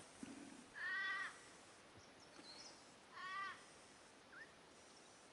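Two drawn-out animal calls about two seconds apart, each lasting about half a second, with a few faint short chirps between them.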